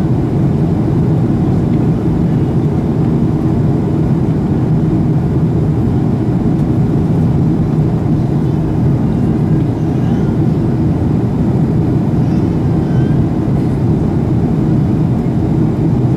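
Steady low cabin noise of a Boeing 737-800 during landing: its CFM56 jet engines and the rush of air, heard from a window seat over the wing.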